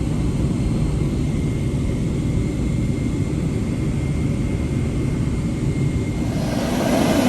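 Jet airliner engines rumbling steadily, with a faint thin whine above the rumble. About six and a half seconds in, the sound grows louder and takes on more hiss.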